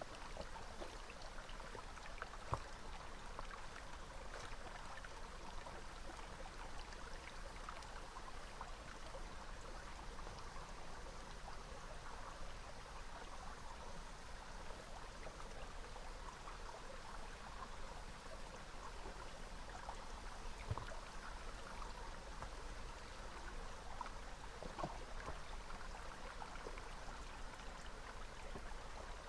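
Small river flowing steadily, with a few faint clicks scattered through it.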